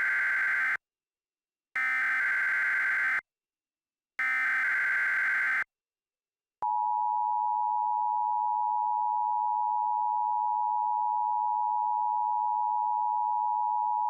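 Emergency Alert System SAME header: three bursts of rapidly warbling digital data tones, each about a second and a half long, with short silences between them (the first is already under way). It is followed, about six and a half seconds in, by the steady electronic attention tone, which holds without change.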